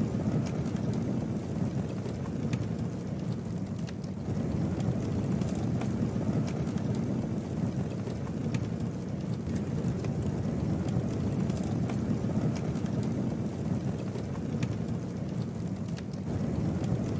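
Campfire burning: scattered sharp crackles and pops from the burning wood over a steady low rumble.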